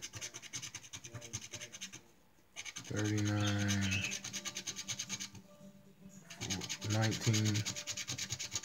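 Coin scraping the silver latex coating off a scratch-off lottery ticket: rapid rasping strokes in spells, pausing twice briefly. A man's low voice hums twice over it, about three seconds in and again near seven seconds.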